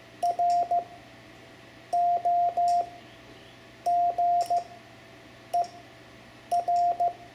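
Hand-keyed Morse code (CW) tone at one steady pitch spelling out the word ROGER: dit-dah-dit, dah-dah-dah, dah-dah-dit, dit, dit-dah-dit, with a pause between letters.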